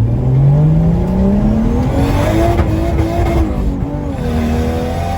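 Single-turbo (HX35) Nissan Skyline R33 engine heard from inside the cabin, pulling under acceleration with its note rising steadily for about three seconds, then dropping at a gear change and holding steady.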